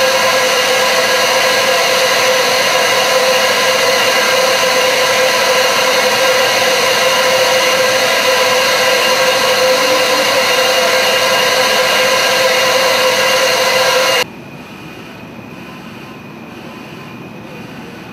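Steady industrial machinery noise from slurry dewatering plant equipment: a loud whining hiss with several steady tones. About four seconds before the end it cuts off abruptly, leaving a much quieter steady hum.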